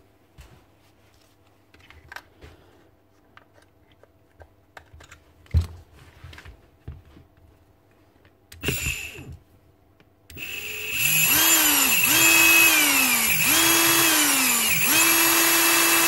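Bare brushed motor of a Bosch GBH 36VF-LI cordless SDS drill, out of its gearbox, test-run on its 36 V battery: after some quiet clicks and knocks of handling, about ten seconds in the trigger is pulled four times, and each time the motor spins up to a steady whine and winds down. It runs freely, a sign the motor was not damaged when the seized part was beaten off its shaft.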